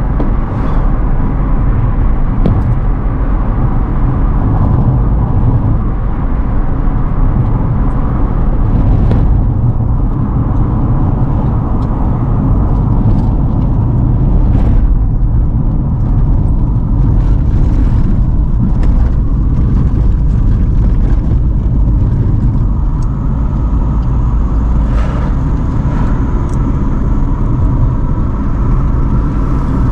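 Car driving along a road: steady low rumble of engine and tyres, with a few brief knocks.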